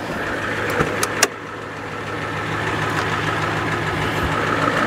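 Ford Econoline van's engine idling steadily, with a few sharp clicks about a second in.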